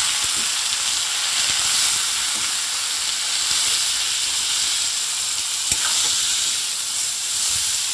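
Cut teasel gourd (kakrol) strips sizzling in hot mustard oil in a steel kadai as they are stirred with a metal spatula, a steady frying hiss. One sharp tap about six seconds in.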